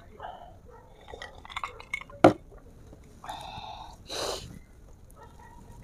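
A drinking glass is set down on a table with one sharp knock about two seconds in. A brief vocal sound and a breathy exhale follow after the drink, among small eating and table sounds.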